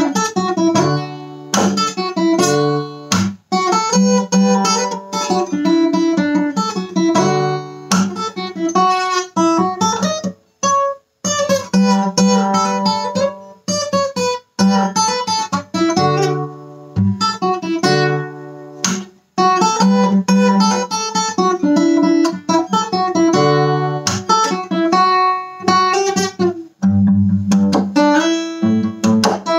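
Acoustic guitar strummed through a chord progression in a steady rhythm, with a few brief breaks between phrases.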